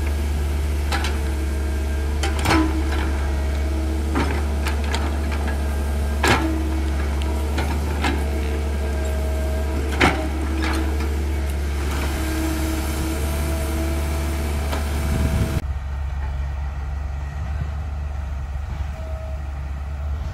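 Excavator's diesel engine running steadily with a whine from its hydraulics and a series of sharp knocks as the bucket works the soil, the loudest about every four seconds. A little over three-quarters of the way through, this gives way to the lower engine rumble of a dump truck driving along the dirt track.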